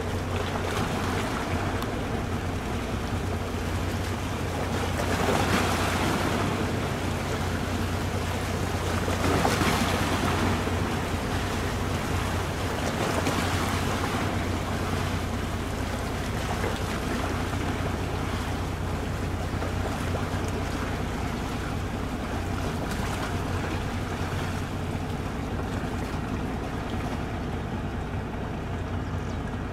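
Passenger speedboat's engines running with a steady low drone as the boat comes in alongside the pier, over water and wind noise on the microphone. The noise swells briefly about 5, 10 and 13 seconds in.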